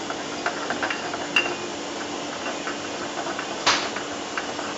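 Kitchen utensils clinking and tapping against a dish while preparing a sauce, with two sharper knocks about a second and a half and nearly four seconds in, over a steady low hum.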